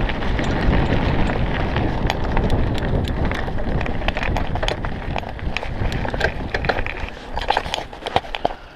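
Mountain bike riding over a gravel track: wind buffets the microphone and the tyres rumble over the stones, with many sharp rattling clicks from the bike. The rumble eases over the last two seconds and the clicks stand out more.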